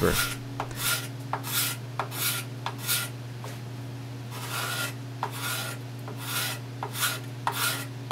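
Steel gooseneck scraper drawn by hand along the cove of a cherry molding: about a dozen short, rasping scraping strokes, roughly one and a half a second with a brief pause near the middle, over a steady low hum. The scraper is blending the stepped, router-cut coves into one smooth curve.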